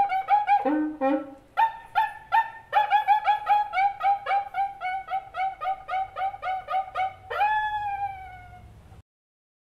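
Background music: an instrumental line of quick repeated notes, about four a second, ending on one long held note that slides down slightly and fades out before the sound cuts off near the end.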